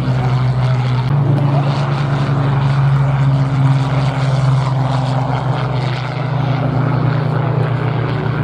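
Supermarine Spitfire's V12 piston engine running at high power as it takes off and climbs away: a loud, steady low drone whose pitch shifts slightly about a second in.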